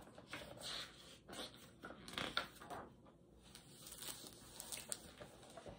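Faint, irregular rustling and handling of a picture book's paper pages, in short scattered bursts.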